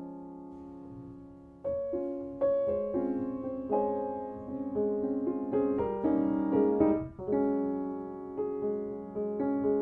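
Background piano music: a gentle melody of struck notes that grows louder a little under two seconds in.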